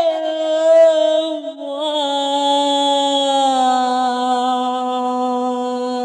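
A singer's voice holding long drawn-out notes of a Bengali lament song, sliding slowly down in pitch; a new long note begins about two seconds in and is held to the end.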